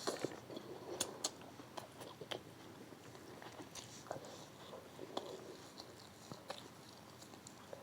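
Close-miked chewing of food, with wet mouth sounds and many short sharp clicks scattered irregularly.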